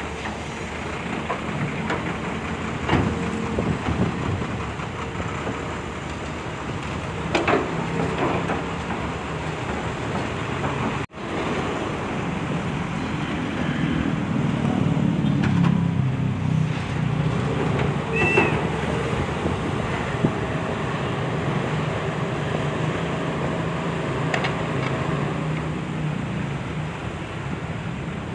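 Diesel engine of a Volvo hydraulic excavator running steadily under load while it digs sand out of a truck bed, with a few sharp metallic knocks from the bucket. The sound cuts out for an instant about eleven seconds in.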